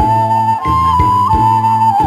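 Background music: a flute-like melody moving in slow steps over a regular low accompaniment of plucked or struck bass notes.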